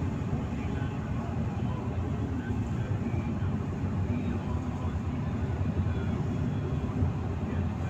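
Steady road and engine noise of a moving car, heard from inside the cabin: a constant low rumble with no distinct events.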